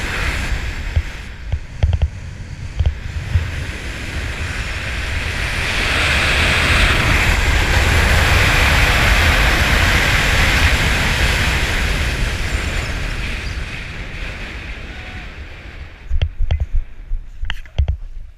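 Wind rushing over an action camera's microphone during a parachute descent, swelling for several seconds in the middle and then easing off. Near the end come several sharp thumps and knocks as the skydiver lands on the grass.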